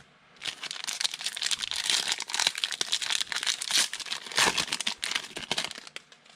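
The shiny foil wrapper of a football trading-card pack being torn open and crinkled by hand: a dense run of sharp crackles starting about half a second in and stopping near the end.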